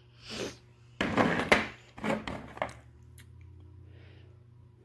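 Clear plastic model-train display cases being handled: a sudden clatter and scrape of plastic about a second in, a second, shorter one around two seconds, then a few light clicks.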